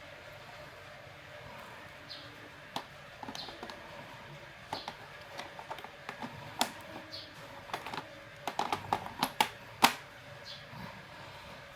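Laptop keyboard keys being pressed: scattered clicks and taps, with a quick run of presses near the end.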